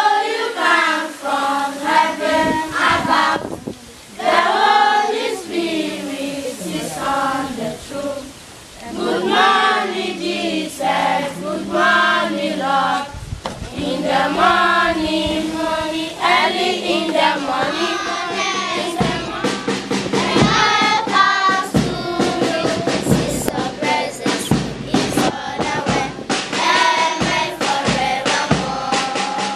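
A group of schoolchildren singing together in unison, with hand claps joining in about halfway through.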